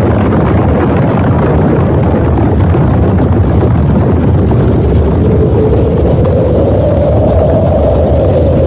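Loud, continuous rumbling roar, a sound effect for a nuclear blast, with a wavering drone running through it that rises a little near the end.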